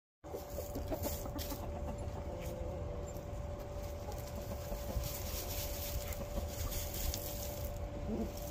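Hens dust bathing in dry dirt: a few soft, low clucks and faint scuffs over a steady background rumble and a constant hum.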